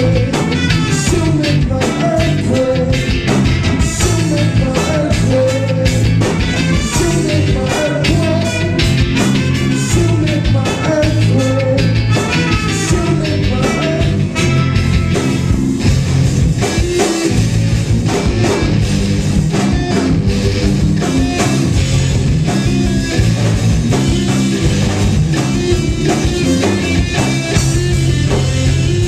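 Live reggae-rock band playing: electric guitar, bass guitar and drum kit, with a trumpet playing the melody.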